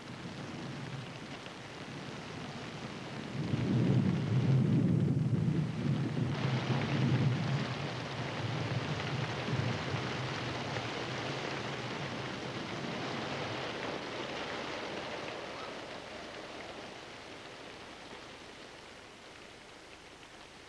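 A deep rumble that swells about three seconds in and dies away over the next several seconds, over a steady hiss that grows louder a few seconds later and then slowly fades.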